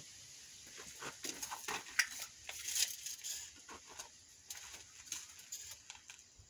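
Irregular light clicks, taps and scrapes of hand work on stone: a stone sill piece being set against the wall and a steel tape measure pulled out and held along it.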